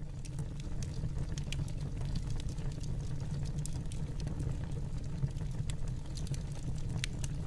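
Fireplace ambience: a log fire burning with a steady low rumble and scattered small crackles and pops.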